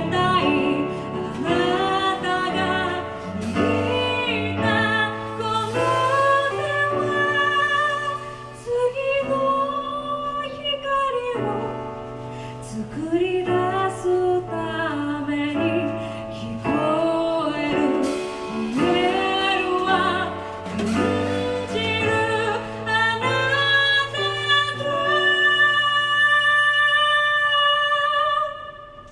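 A female vocalist singing with piano and drums, played live. The song closes on a long held note and chord that stops abruptly near the end.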